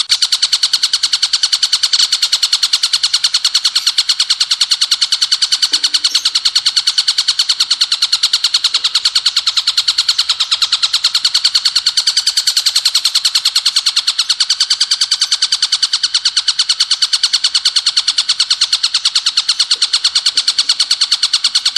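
Ciblek gunung (mountain prinia) song in rapid 'bren' style: a fast, machine-gun-like run of shrill high notes, several a second, repeated evenly without a break.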